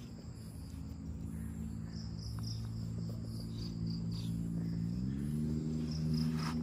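Crickets chirping in a pulsing high trill, over a louder low steady hum that shifts up slightly in pitch about five seconds in.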